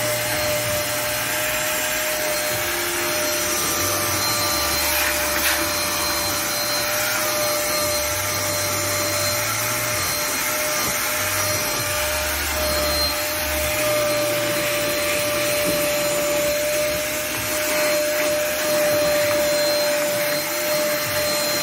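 Vacuum cleaner running steadily with a constant whine, its hose nozzle drawn over a car's bare floor to pick up dust and grit.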